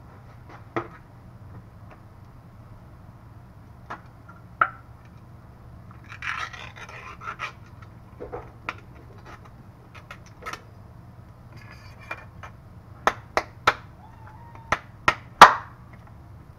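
Kitchen handling noises from a Spam can and a paper plate: scattered clicks and knocks, a short rustle about six seconds in, and a quick run of sharper clicks near the end, the loudest about fifteen seconds in, over a low steady hum.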